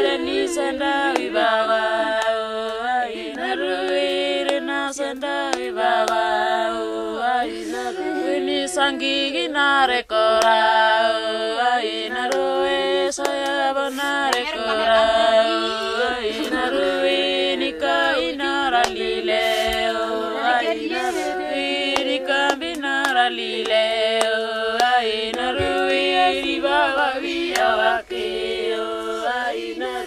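Women singing a lament together without instruments, in long sung phrases with a short break about ten seconds in and another near the end.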